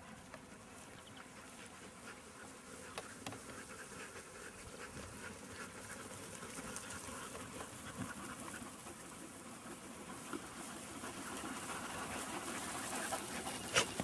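A flock of sheep running over grass, a soft rustle of many hoofbeats that grows louder as the flock comes near, with a sharp click near the end.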